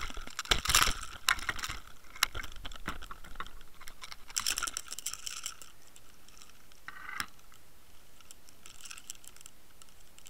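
Close handling noise: a dense run of clicks and rattles over the first couple of seconds, another rattling stretch about four to five seconds in, a single knock about seven seconds in, and a faint rattle near the end.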